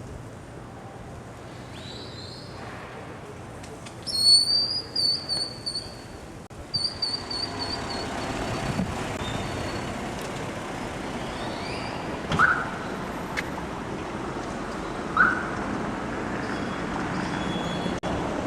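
Street sounds: a shrill, high, trilling whistle in several short bursts, then a steady hum of traffic with two short chirps.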